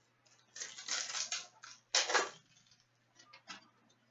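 Trading cards and their opened pack wrappers being handled, making a burst of crinkling and rustling about half a second in and a shorter one about two seconds in. A few light clicks follow near the end.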